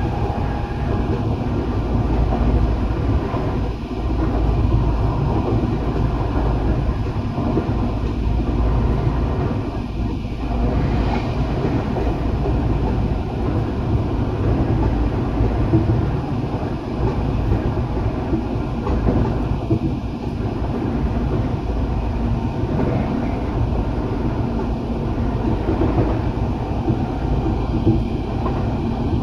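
Eidan (Tokyo Metro) 8000 series electric commuter train running between stations, heard from inside the car: a steady rumble of wheels on rail and running noise.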